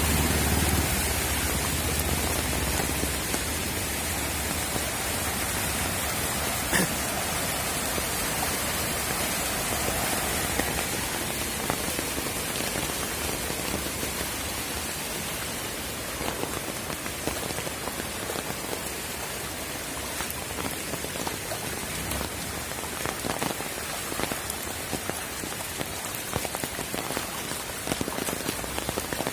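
Steady rain falling, with individual drop hits growing more distinct in the second half. A low rumble sits under it for the first few seconds.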